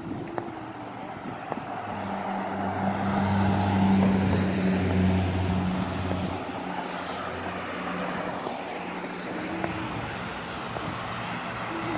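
Street traffic: a passing vehicle's engine drone and tyre noise swell to a peak about four seconds in, then fade to a lower steady traffic sound.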